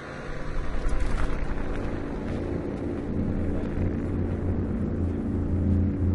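A low, steady drone of several held low tones over a rumble, swelling about half a second in: one of the unexplained 'strange sounds in the sky', which those hearing it took to come from the clouds or to be construction on the highway.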